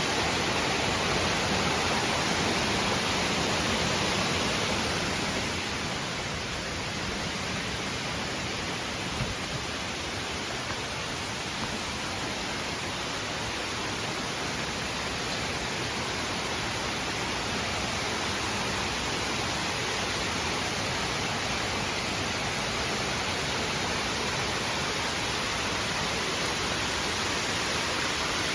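Waterfall: water falling and splashing in a steady, even rush, a little softer from about five seconds in.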